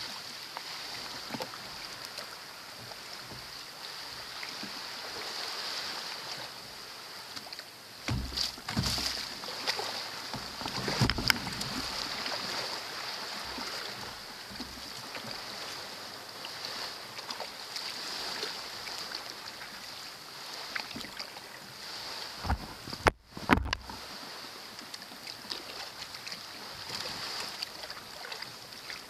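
Small waves lapping against a kayak's hull on calm sea, over a steady high hiss, with a few louder thumps around eight, eleven and twenty-three seconds in.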